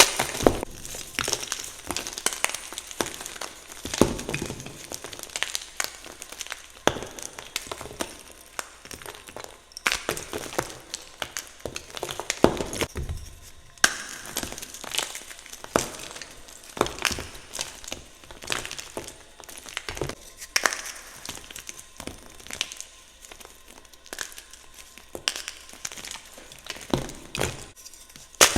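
Blocks of gym chalk being crushed, crunching and crumbling in a run of irregular sharp crackles and snaps.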